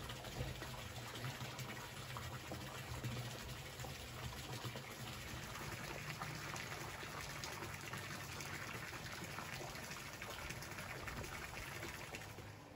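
Pool water running and lapping steadily, a soft continuous gushing that fades down near the end.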